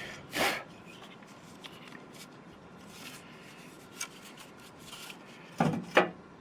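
Hands working on a pickup tailgate's lock mechanism: rubbing and handling noise, a short scrape about half a second in, a few small clicks, and two louder knocks near the end.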